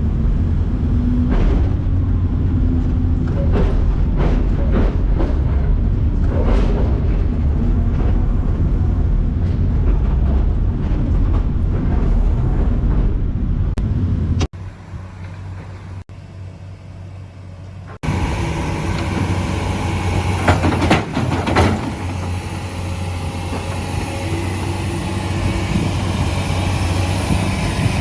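Heavy construction machinery running, a loud, steady low engine rumble with scattered knocks and clanks. The sound drops sharply for a few seconds about halfway through, then returns with a different machine's rumble.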